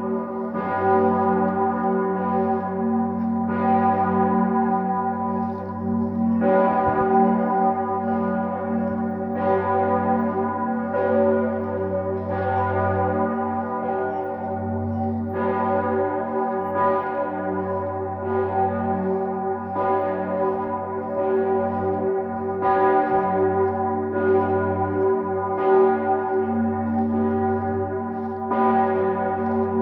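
Bells ringing, struck afresh every one to three seconds over a continuous ringing tone that never dies away.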